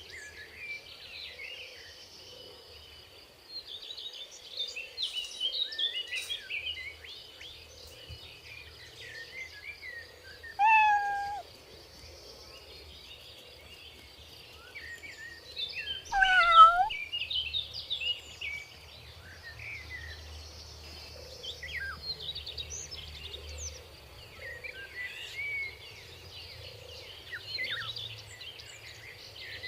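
A kitten mewing twice, about ten and about sixteen seconds in, each mew falling in pitch. Behind it, small birds chirp throughout over a steady, high insect drone.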